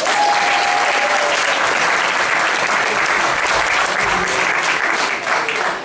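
Audience applauding, a dense, steady clapping that thins into separate claps near the end.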